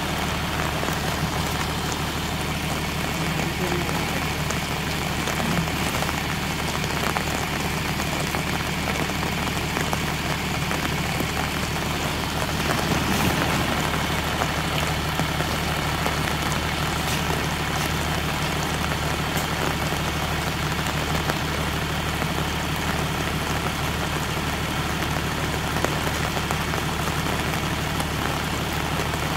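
John Deere 3350 tractor's diesel engine running at a steady speed, with rain falling.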